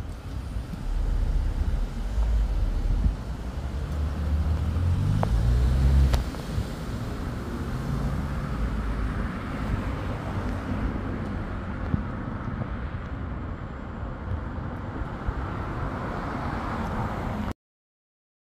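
Street traffic with a vehicle engine accelerating, rising in steps about four to six seconds in over a steady low rumble. The sound cuts off to silence near the end.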